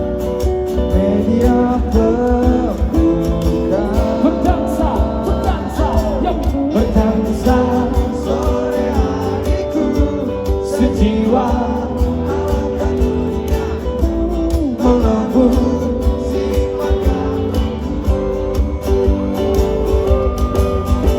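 Live band music: guitar with a strong bass underneath and singing.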